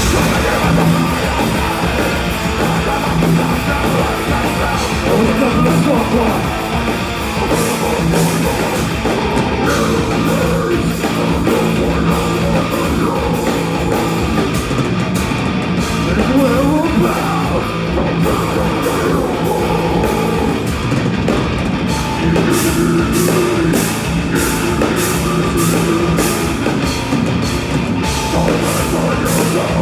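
Live metalcore/deathcore band playing loud: heavy electric guitar, drum kit and harsh vocals. In the last third the drums fall into a steady, even beat.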